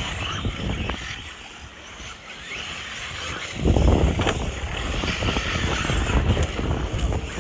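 Radio-control off-road racing buggies running on a dirt track, heard as a steady hiss. From about halfway through, wind buffets the microphone with a low rumble that becomes the loudest sound.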